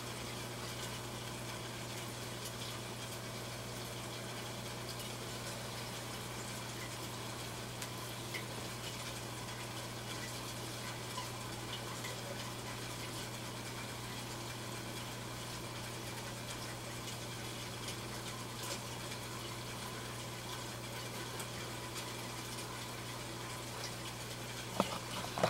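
Aquarium filtration running: a steady wash of moving water over a low, steady hum, with a few faint ticks and a single knock near the end.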